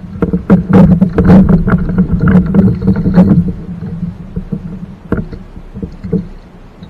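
Handling knocks and rattles carried through a plastic fishing kayak's hull, mixed with a hooked fish splashing at the surface as it is reeled in beside the boat. The sound is loudest and busiest through the first half, then thins to a few scattered knocks.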